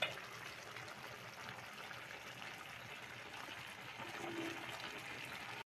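Coconut-milk stew of crab, shrimp, string beans and squash simmering in a pan, with a steady, faint bubbling hiss.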